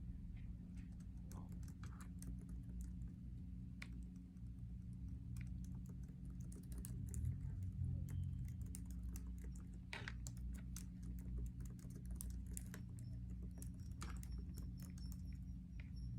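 Irregular light clicks and taps, like tapping or typing, over a steady low electrical hum.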